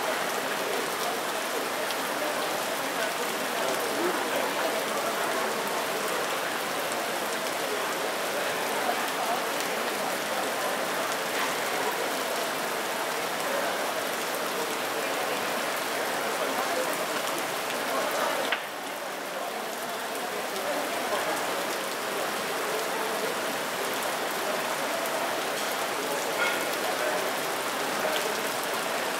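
Shallow stream running over rocks, a steady splashing of water that suddenly drops a little in level about two-thirds of the way through.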